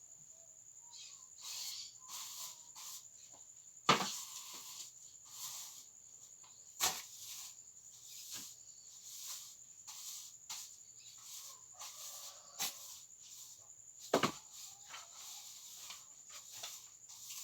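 A continuous high-pitched insect trill, typical of crickets, with a string of short knocks and several sharper thumps, the loudest about four seconds in.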